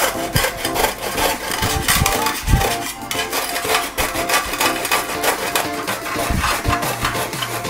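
Peeled bottle gourd grated on the large holes of a stainless-steel grater: repeated rasping strokes, about three a second. Soft background music underneath.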